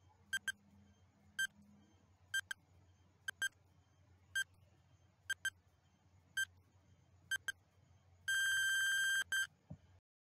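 Countdown timer beeping about once a second, some as quick double beeps, with a longer held beep of about a second near the end as it runs out to zero.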